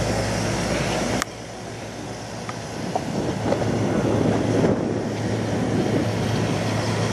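Steady low hum of an idling diesel truck engine under the general noise of an outdoor truck show. A sharp click about a second in is followed by the deepest rumble dropping away, and the noise then builds back up.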